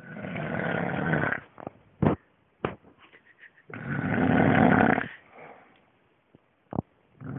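A man snoring in his sleep: two long, loud snores about three and a half seconds apart, with a few brief sharp sounds between them.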